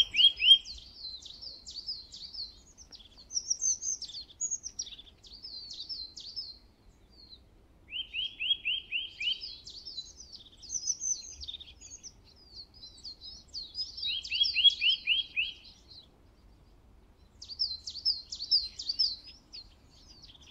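Songbirds singing: a fast, high twittering warble with short pauses, broken three times (at the start, about eight seconds in and about fourteen seconds in) by a run of five or six quick, evenly spaced, slightly lower notes.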